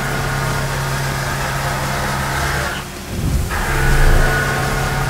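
Titanium being rough-milled by a 3/4-inch Kennametal HARVI III carbide end mill at about 2,000 rpm, cutting 3 inches deep: a steady low machining hum over the hiss of flood coolant. The hum breaks off briefly about three seconds in, then resumes.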